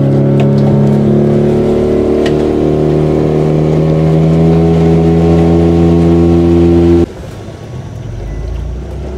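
Motorboat engine running steadily under way, a constant hum. About seven seconds in it cuts off abruptly to a much quieter low rumble.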